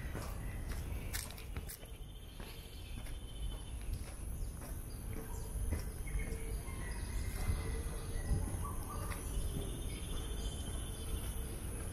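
Outdoor park ambience: a steady high drone of insects with birds chirping now and then, light footsteps on a paved path, and a low rumble underneath.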